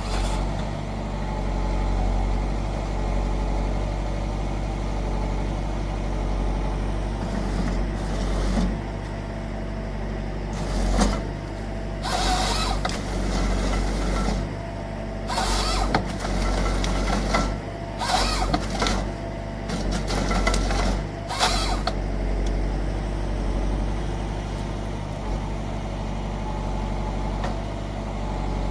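Forestry harvester's engine running steadily. Several short, louder bursts of noise come through the middle, from the machine working.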